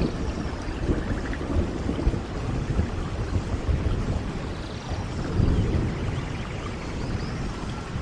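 Steady rain with a low, rolling rumble of thunder underneath, swelling about five seconds in.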